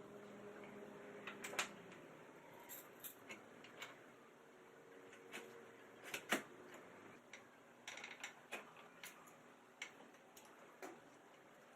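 Sparse, irregular light clicks and taps of small hard objects. A faint steady hum stops about a second and a half in.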